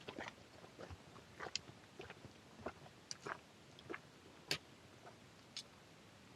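Close-up chewing of wild mountain berries: a run of irregular soft clicks and crunches, about a dozen, the sharpest one about four and a half seconds in.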